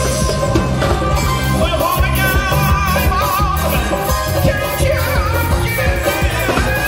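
A man singing through a microphone with a live band of drum kit and keyboards, amplified over loudspeakers; the voice wavers with vibrato.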